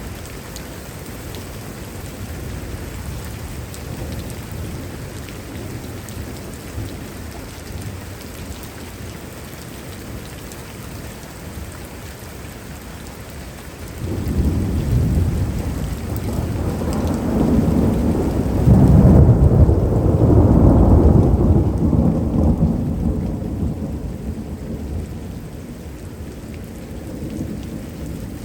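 Heavy thunderstorm rain falling steadily, then about halfway through a long roll of thunder starts suddenly, builds to its loudest a few seconds later and slowly rumbles away.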